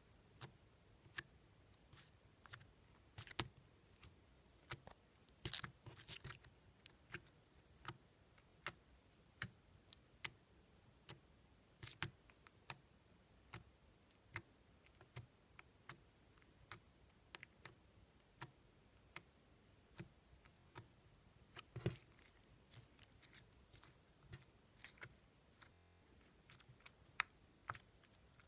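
Slime being handled, making sharp, irregular clicks and pops, roughly one or two a second and sometimes in quick clusters.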